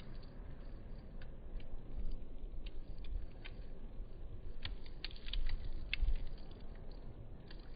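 Campfire crackling: scattered pops and snaps, with a cluster of louder ones about five to six seconds in, over a low rumble.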